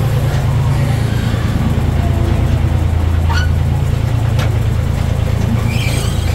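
Steady low rumble of a ride vehicle running through a dark tunnel, with two sharp clicks about halfway through.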